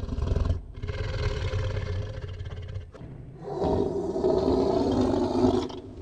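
Tiger roaring: two long, rough calls, the second starting about halfway through and stopping just before the end.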